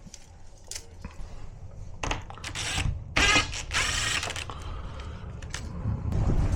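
Clicking, then a dense rattling clatter of hard objects being handled, about two to four seconds in; a low rumble builds near the end.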